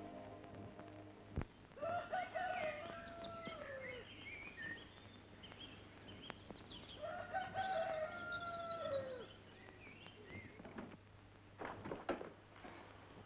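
A rooster crowing twice, each crow about two seconds long with a drawn-out ending that falls in pitch, among smaller birds chirping. A few sharp knocks near the end.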